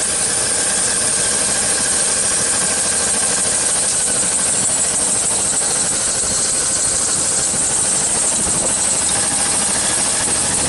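Engine of a 1999 Chevy Suburban idling steadily, heard from the open engine bay, with the air conditioning running on high.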